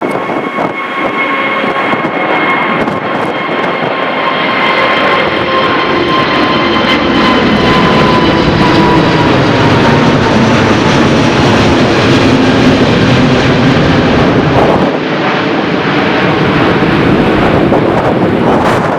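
Airbus A380-842's four Rolls-Royce Trent 900 turbofans at take-off thrust as the jet climbs past. A steady jet roar builds to its loudest about halfway through and eases toward the end, with high whining tones slowly falling in pitch.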